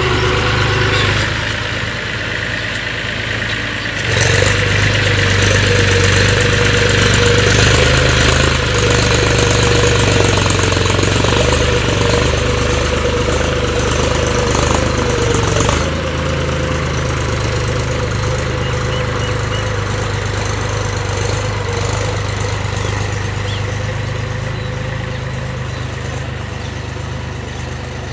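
Mahindra tractor's diesel engine running steadily while pulling a tine cultivator through a field. It grows louder about four seconds in and drops back somewhat after about sixteen seconds.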